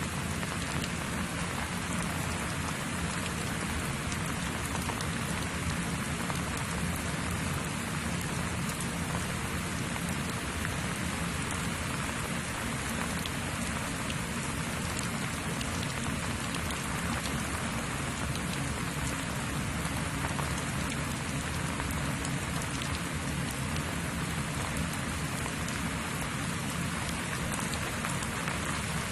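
Steady, even background noise with no speech.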